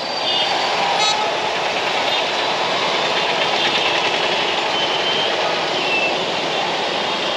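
Heavy road traffic: a steady wash of engine and tyre noise, with short high-pitched horn toots now and then.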